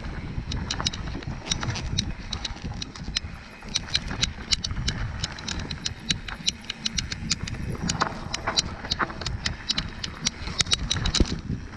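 A bike rattling over rough ground: rapid, irregular clicks and knocks from the frame and drivetrain, over a steady low rumble.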